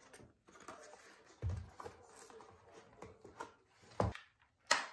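Molded fibre seedling trays being handled on a countertop: light rustling with a couple of soft knocks as the stacked trays are set down and pulled apart, and a sharp tap near the end.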